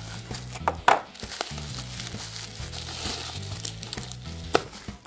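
A plastic surprise egg being opened and its toy handled: a few sharp clicks and some crinkling. Quiet background music with a low bassline plays underneath.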